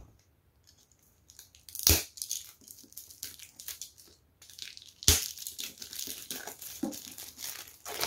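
Plastic shrink-wrap on a hardcover book being slit with a knife and torn and peeled off, crinkling and tearing. There are two sharp cracks, about two seconds in and about five seconds in, and steadier crinkling after the second.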